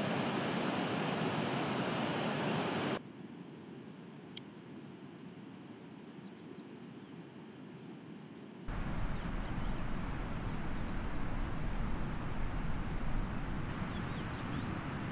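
Outdoor mountain ambience that changes abruptly at each cut. First a steady rushing noise, then a quiet stretch with a few faint bird chirps, then wind buffeting the microphone with a low rumble and a few more faint chirps.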